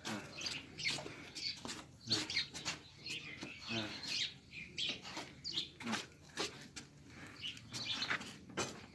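Small birds chirping over and over in short, quick calls, with a few faint voices in the background.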